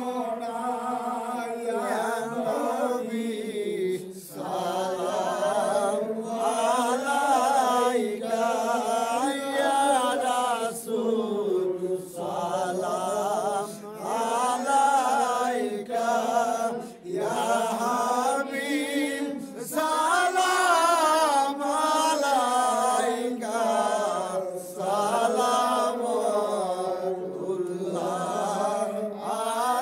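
A man's solo voice chanting a Bengali devotional call for mercy in long, slow, drawn-out phrases. The pitch wavers and turns on each held note, with short breaks for breath between phrases.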